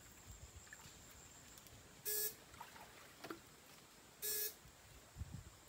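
Two short electric buzzes, about two seconds apart, from a battery-powered electrofishing rig as its pair of probes is switched on in the water to stun eels.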